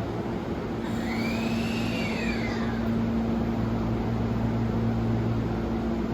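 Hankyu 1000 series electric train starting to pull out. A whine rises and then falls in pitch over a steady low hum from the train's equipment.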